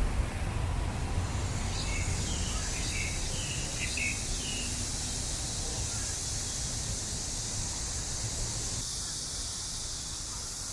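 Outdoor park ambience: a few short bird chirps about two to five seconds in, over a steady high hiss and a low rumble.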